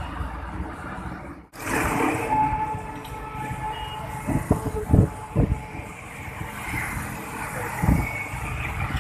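Steady street traffic noise from vehicles on the road, with a brief dropout about a second and a half in and several low thumps around the middle and once near the end.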